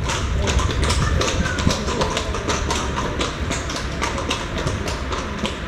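Horse hooves clip-clopping in a run of irregular knocks, over a steady low rumble.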